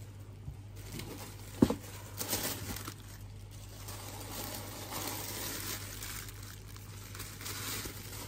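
Tissue paper rustling and crinkling as it is unfolded and pulled out of a shoe box, in uneven swells. One sharp tap comes about one and a half seconds in.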